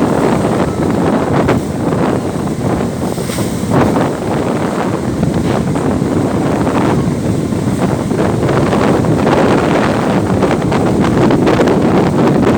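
Strong wind buffeting the microphone, a loud, gusting rumble that rises and falls without a break.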